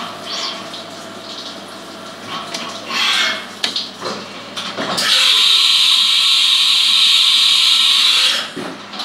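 Haas Minimill CNC mill going through a tool change. Machine and coolant-spray noise with a few clicks is followed by a sharp clunk about five seconds in. Then a loud steady air hiss lasts about three and a half seconds while the tool is released and the umbrella carousel indexes, and it cuts off near the end.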